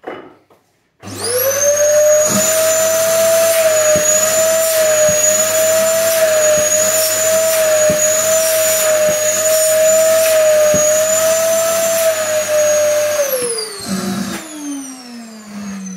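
Dyson DC08 cylinder vacuum cleaner switched on about a second in, its motor running steadily with a high whine. Near the end it is switched off and the whine falls in pitch as the motor winds down.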